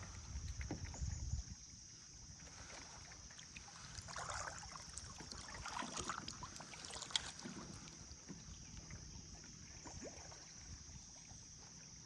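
Water sounds around a kayak drifting in a swift river current: soft splashes, drips and small knocks against the hull, with low wind rumble on the microphone in the first second or so and a sharp click a little after seven seconds.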